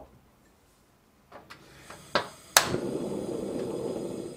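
Gas stove burner being lit: a few igniter clicks, then a sharp click as the gas catches and a steady rushing of the burning flame, which cuts off just before the end.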